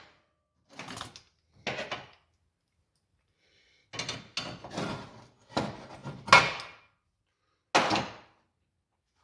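Irregular heavy metal knocks, about seven of them, each with a short ring as it dies away: steel parts being struck and banged while a slipped, badly clamped frame piece is reset.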